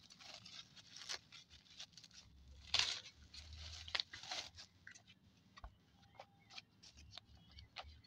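Bubble wrap and plastic packaging crinkling and rustling in irregular bursts as a parcel is unwrapped by hand, loudest about three seconds in and again around four seconds, then thinning to scattered small crackles.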